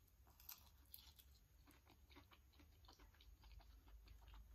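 Faint mouth sounds of a person biting into and chewing soft durian flesh: a scatter of small wet clicks and smacks.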